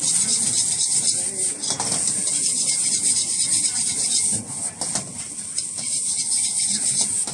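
Metal ladle scraping and clacking rapidly against a wok as fried rice is stirred and tossed over a high gas flame, over a steady high sizzle of the frying rice. The scraping eases briefly about halfway through.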